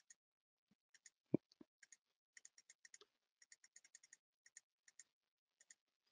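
Faint, irregular clicking of typing on a computer keyboard, in quick clusters of keystrokes, with one louder low thump just over a second in.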